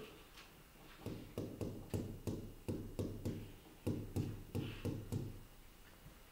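Stylus tapping and knocking against the glass of an interactive touchscreen display while writing an equation: about a dozen light taps, roughly three a second, starting about a second in and stopping a little after five seconds.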